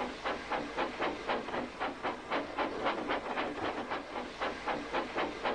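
Steam locomotive puffing away at a steady pace, its exhaust chuffing evenly about three times a second with a hiss of steam.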